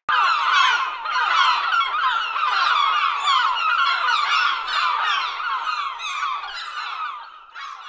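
Outro sound over the closing sponsor card: a dense chorus of fast chirping, warbling tones that starts abruptly and fades away near the end after one last brief flourish.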